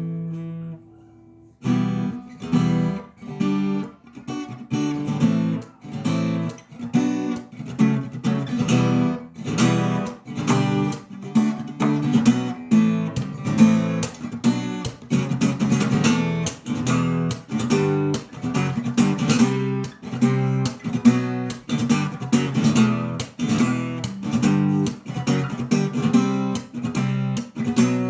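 Acoustic guitar played fingerstyle with percussive knocks on the body: plucked notes over a steady beat of sharp taps. There is a brief pause about a second in before the playing resumes.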